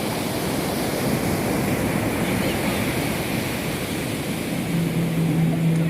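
Ocean surf washing steadily on the beach, with a steady low hum for about a second and a half near the end.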